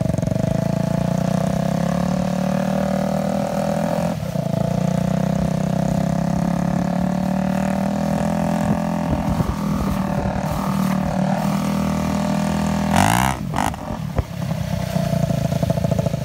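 Dirt bike engine running at a steady throttle while towing on a rope. The engine note dips briefly and comes back near the end.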